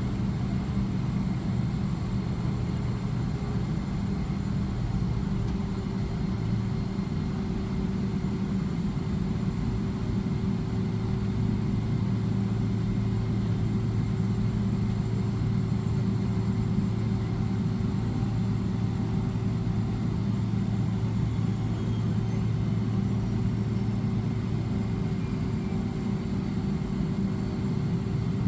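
Cabin noise of a Boeing 777-300ER taxiing, heard from inside beside the wing: a steady low hum from its GE90-115B engines at idle thrust, with a few steady tones in it. A faint high whistle falls slowly in pitch in the last part.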